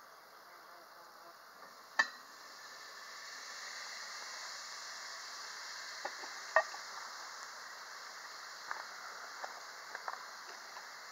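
Bacon and onions sizzling in a cast iron Dutch oven as they are stirred. A sharp knock of the utensil against the pot comes about two seconds in, after which the sizzle grows louder and stays steady. A second knock comes about halfway through, and lighter taps follow near the end.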